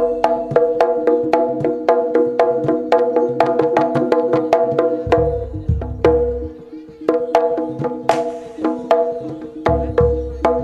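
Jaranan ensemble playing live: fast, even percussion strikes, about four to five a second, over ringing pitched gong-chime tones. Deep low booms come in about five seconds in and again near the end, with a brief splashy crash around eight seconds in.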